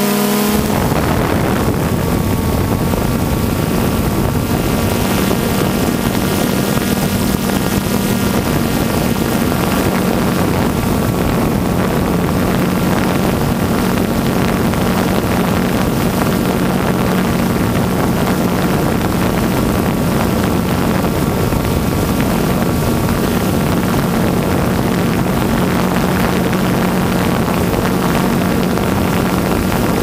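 DJI Phantom 2 quadcopter's four brushless motors and propellers running steadily while hovering, picked up close by the camera mounted on the drone: a constant hum over a rushing noise.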